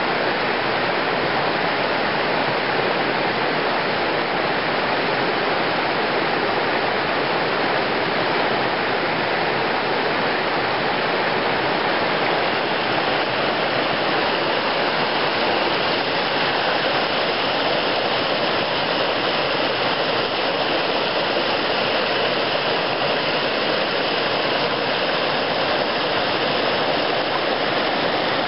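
Mountain creek rushing over rocks: a loud, steady rush of flowing water.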